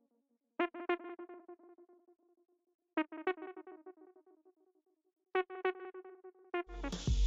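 Background music: soft synthesizer keyboard chords, struck in pairs about every two and a half seconds and left to ring out. A full beat with heavy bass and drums comes in near the end.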